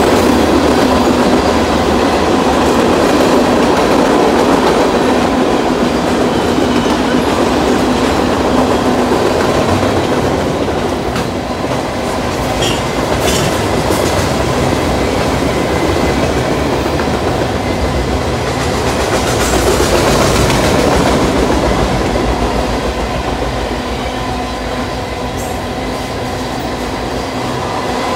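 Freight train's cars (tank cars, covered hoppers and boxcars) rolling steadily past at speed: a continuous rumble with the clickety-clack of wheels over the rails and occasional metallic clicks.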